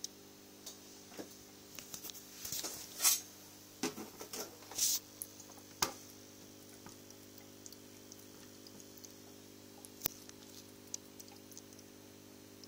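Scattered rustles and clicks over the first six seconds, loudest about three seconds in, then a few isolated clicks, over a faint steady hum.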